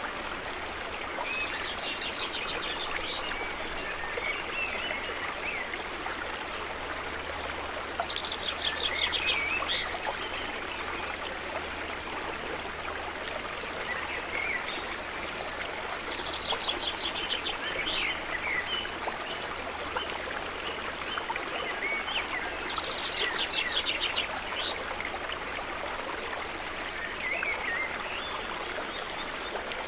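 A stream flowing steadily. A bird sings a short, high, trilled phrase over it every seven seconds or so.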